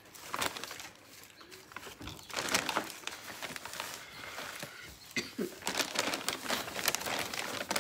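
Irregular rustling, light clicks and crinkling of hands handling plastic seedling trays, potting mix and a seed bottle and packet, busiest about two and a half seconds in and again over the last few seconds.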